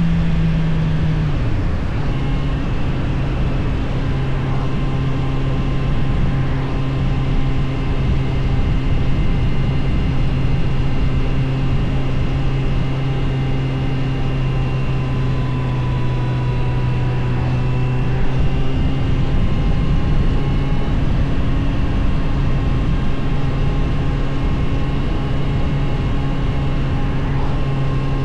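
Suzuki GSF 600 Bandit's inline-four engine running at steady riding revs over a rush of wind and road noise. The engine note drops a step about a second and a half in, then holds steady.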